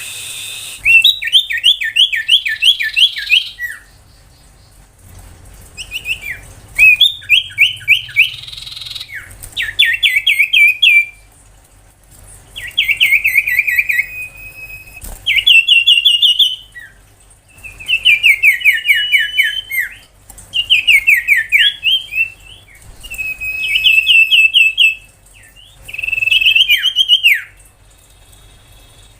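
Common iora (sirtu) singing: about ten short phrases of rapid, repeated chirping notes, some sliding downward and some rising into a brief held whistle, with short pauses between phrases.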